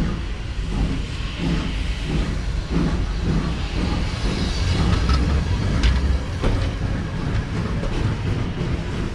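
Passenger coaches rolling past at low speed, with a low rumble and a rhythmic clickety-clack of their wheels over the rail joints, about two knocks a second, and a few sharper clicks midway.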